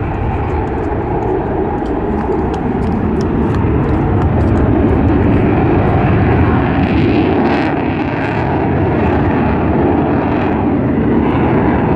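Mirage fighter jet's engine roaring steadily overhead, its roar swelling slightly midway through.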